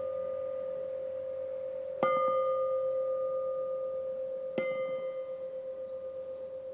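Cast bowl-shaped clock bells struck with a mallet twice, about two seconds and four and a half seconds in. Each bell rings on with a long, slowly fading hum and a set of higher overtones. The ring of an earlier strike is still sounding at the start.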